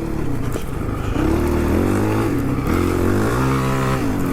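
Honda CRF450 dirt bike's single-cylinder four-stroke engine running under way, softer at first and picking up about a second in, its revs rising and falling with the throttle.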